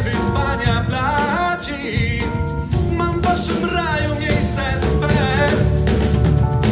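Male vocalist singing with a live jazz band of piano, bass and drum kit.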